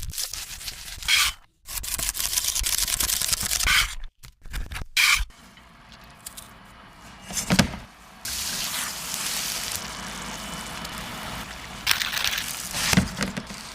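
Kitchen sounds cut together in short clips: scraping of utensils, liquid pouring and dripping, with a few sharp clattering bursts.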